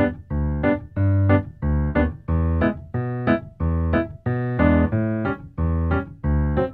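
Background piano music with a steady rhythm of repeated chords.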